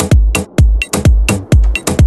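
Electronic dance music with a steady, driving kick-drum beat, about two beats a second, topped with crisp hi-hat and clap hits.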